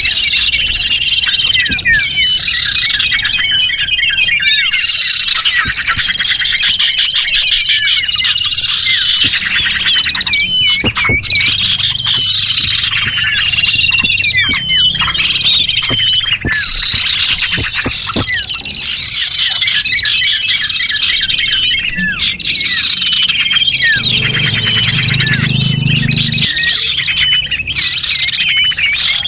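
Continuous, busy chirping and twittering of small songbirds, with rapid trills and repeated whistled notes overlapping one another: a small-bird lure call recording played to attract small birds.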